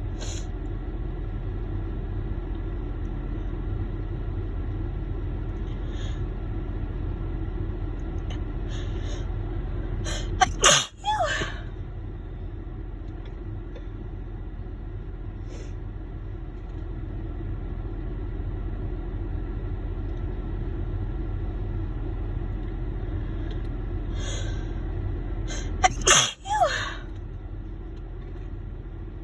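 A woman sneezing hard twice, about fifteen seconds apart. Each sneeze is preceded by a few short breaths as it builds. A steady low hum runs underneath inside the car.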